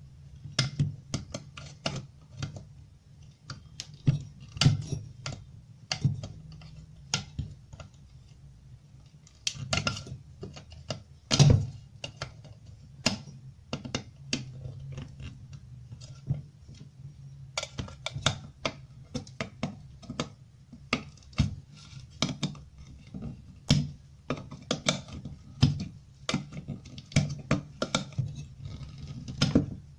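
Pliers clicking and scraping against a lamp socket's terminal and its metal housing: a string of irregular sharp metallic clicks, with the loudest about a third of the way in, over a steady low hum.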